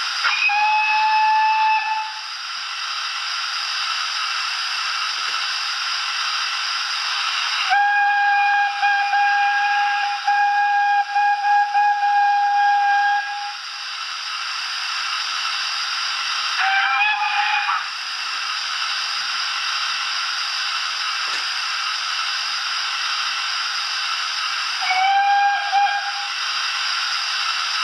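Youchoos Zimo sound decoder in a Dapol SECR Wainwright D class OO model locomotive, playing through its tender speaker: a steady steam hiss with four whistle blasts over it, a short one at the start, a long one of about six seconds, a brief wavering one, and another short one near the end.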